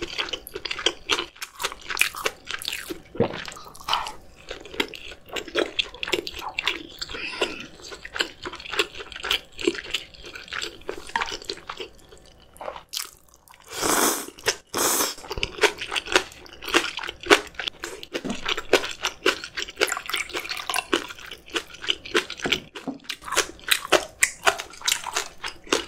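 Close-miked chewing and crunching of spicy steamed monkfish: a dense run of short wet mouth clicks and crunches. Two louder, longer bursts come about halfway through.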